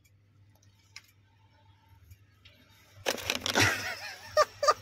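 Near silence for about three seconds, then a tokay gecko gives a loud, rapid run of defensive calls, about three a second, with its mouth gaping open.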